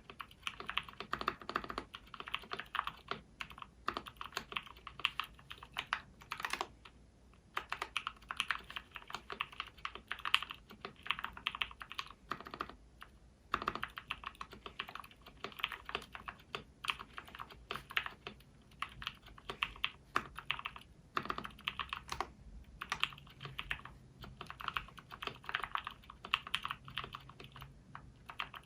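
Typing on a custom 60% mechanical keyboard with lubed SP-Star purple switches on a DZ60 PCB in a KBDfans Tofu acrylic case. Runs of fast keystrokes are broken by a few short pauses, and a few heavier strokes stand out.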